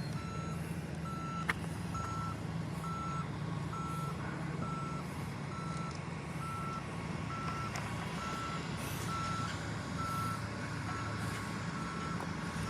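Reversing alarm on a heavy construction vehicle beeping at one steady pitch, about one beep a second, over the vehicle's diesel engine running steadily. A single sharp click comes about a second and a half in.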